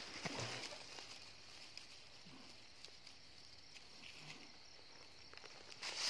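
Faint steady chirring of night insects, with light rustling of dry grass and leaves near the start.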